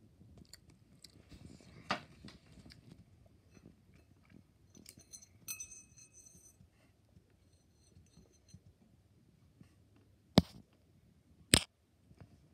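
Fingers handling a small hard plastic piece on a ceramic plate: faint scrapes and light clicks, with a brief high squeak about halfway. Near the end come two sharp, loud clicks a little over a second apart.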